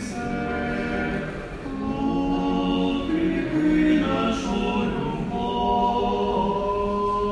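Choir singing unaccompanied Eastern Catholic liturgical chant, long held notes moving in steps from one pitch to the next.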